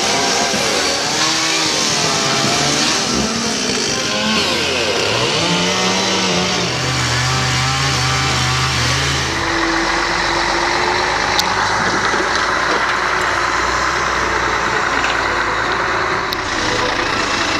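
Engines of tree-moving machinery running. A small engine revs up and down in the first few seconds, then rises and holds steady. From about ten seconds in, a heavier, lower engine runs steadily with a hiss.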